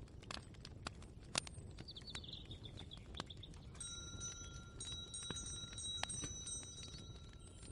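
Layered kitchen ambience: frequent light clicks and taps, a bird chirping about two seconds in, and a chime ringing with several steady tones from about four seconds in until near the end.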